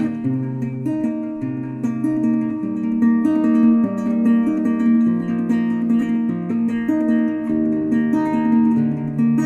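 Background music: acoustic guitar playing plucked notes over a moving bass line.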